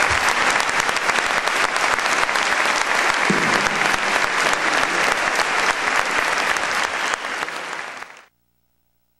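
Large audience applauding, a dense steady patter of many hands clapping, which cuts off suddenly about eight seconds in.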